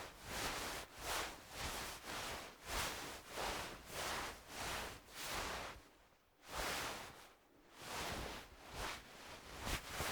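Clothing fabric rustling in a run of soft swishes, about two a second, with a brief pause about six seconds in before the swishing resumes.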